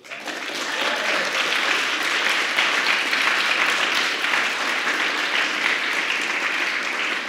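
Audience applauding. It starts right after the speaker's last words, swells over about a second and then holds steady.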